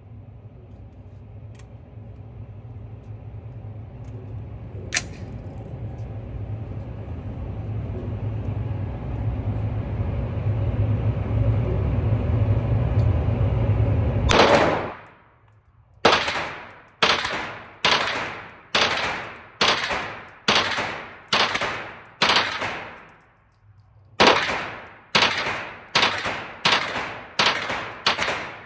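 Gunshots fired one at a time in quick succession, about one a second: a string of eight, a short pause, then six more, each with a brief echoing tail. Before them a low rumbling noise grows steadily louder and then stops abruptly.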